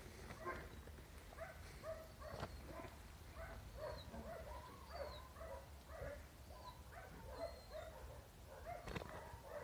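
Puppies yipping and whining in play, a steady run of short, faint calls about two or three a second.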